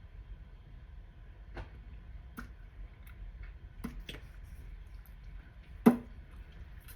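A handful of faint, sharp clicks and taps from handling lip makeup, the sharpest about six seconds in.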